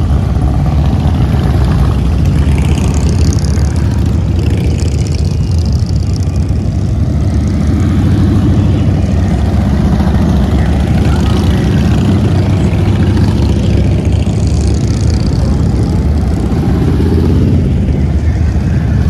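A procession of cruiser and touring motorcycles passing one after another at parade speed, their engines running in a steady, loud low drone.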